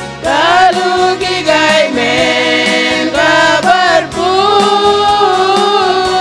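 A group of women singing a Christian song together, their voices coming in strongly about a quarter second in, over a steady beat of accompaniment.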